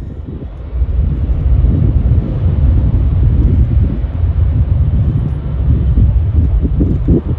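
Jet airliner's engines on the runway, heard as a loud, steady low rumble that swells about a second in.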